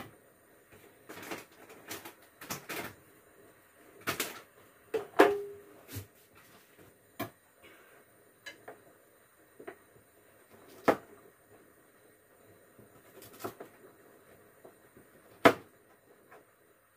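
Scattered clicks and knocks of a kitchen knife and cookware being handled on a table, with one short ringing metallic clink about five seconds in.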